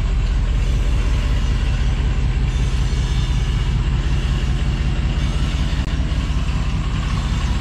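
Engine of a one-ton Chevy van idling steadily, an even low rumble.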